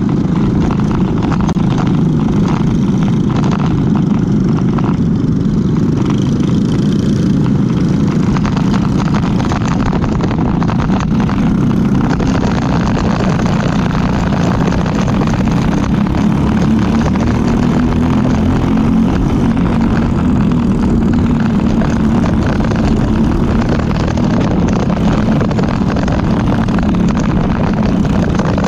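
Briggs & Stratton LO206 single-cylinder four-stroke kart engine running hard, heard from the kart itself amid a pack of other karts. Its note rises and falls with the throttle, climbing somewhat about halfway through.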